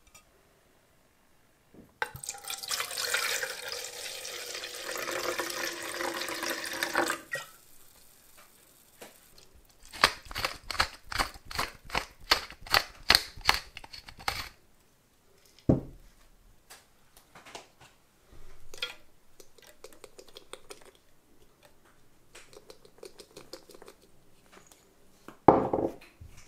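White wine poured from a bottle into a plastic measuring jug, a steady splashing pour lasting about five seconds. Later a wooden pepper mill is twisted over the jug, a run of quick, regular clicks for about four seconds. There is a knock about sixteen seconds in and a louder knock near the end.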